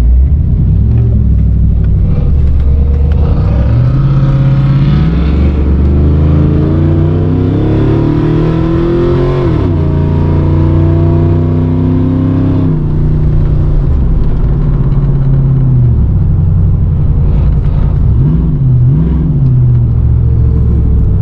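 Car engine revving up in pitch for several seconds, dropping sharply, holding steady, then falling back to a lower, steady run.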